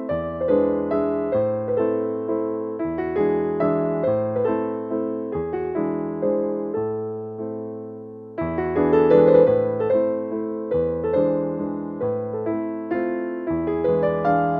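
Background piano music: a light melody of struck notes dying away over a slowly changing bass line. It dips briefly just past halfway, then comes back louder.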